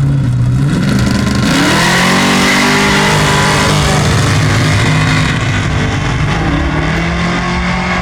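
Chevrolet Camaro engine revved: the pitch climbs sharply about a second and a half in, holds high for a few seconds, then drops back toward idle, with a smaller blip of the throttle near the end.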